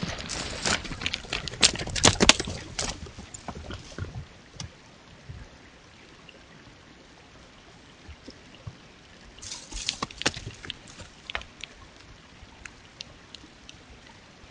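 Creek water trickling steadily, with two spells of sharp clicks and splashes, one in the first three seconds and another about ten seconds in.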